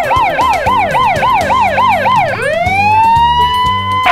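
Electronic emergency-vehicle siren: a fast yelp of quickly repeated rising sweeps, about three a second. About two and a half seconds in, it switches to one tone that glides up and then holds steady.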